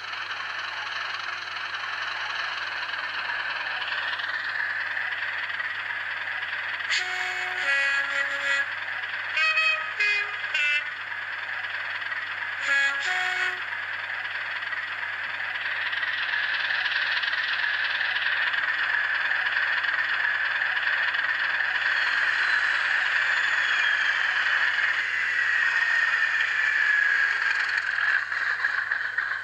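DCC sound decoder in an N gauge Class 37 model locomotive playing a Class 37 English Electric diesel engine sound through its tiny speaker, running steadily with a thin, speaker-coloured tone. About a third of the way in the horn sounds in three short blasts, changing between two pitches. Later the engine note swells, and near the end a whistling whine falls slowly in pitch.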